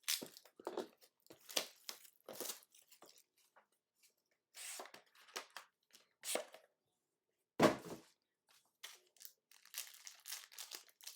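A sealed trading-card hobby box being torn open by hand: irregular tearing and crinkling of wrapping and card packaging, with one louder thump about eight seconds in.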